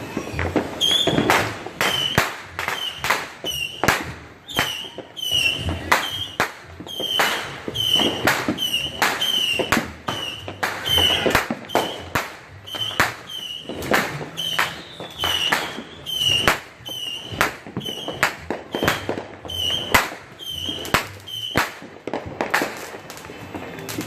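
Consumer fireworks going off in a rapid string of sharp pops, about two a second, each with a brief high whistling chirp.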